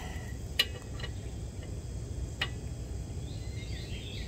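Two sharp clicks about two seconds apart from a click-type torque wrench being worked on a bolt set to 288 inch-pounds, over a steady low rumble and faint high chirps.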